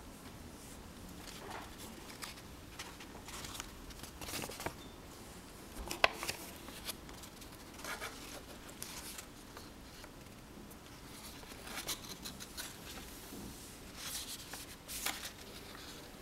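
Folded paper airplane rustling and creasing as hands handle and fold it, in scattered short rustles with a sharp click about six seconds in.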